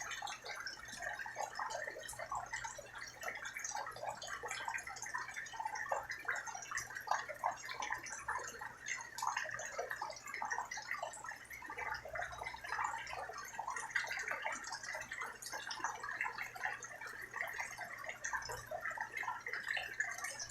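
Steady rain falling, heard as a dense, irregular run of drips and splashes.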